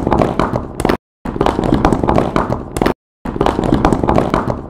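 A pile of blocks falling and clattering, many quick knocks tumbling over one another, in three runs broken by two brief silences where it cuts off abruptly.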